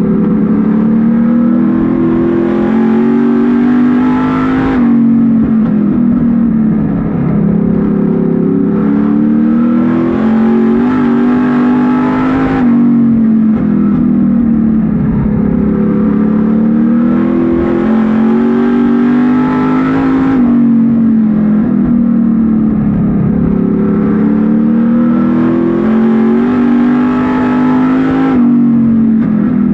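Street stock race car engine at racing speed, heard from inside the cockpit. Its note climbs under throttle for several seconds and drops sharply when the driver lifts for a turn. The cycle repeats about every eight seconds, four times.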